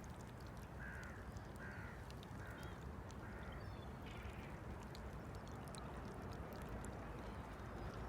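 Sea waves washing against a shore make a steady low rush, while a bird gives five short calls in a row, about one a second, in the first half.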